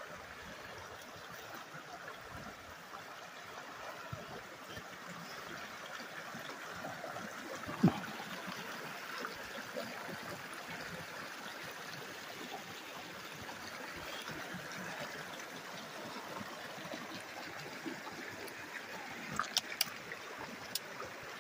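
Shallow mountain creek, the South Fork of the West Mancos River at low flow, running steadily over rocks and riffles. A single knock about eight seconds in and a few short clicks near the end.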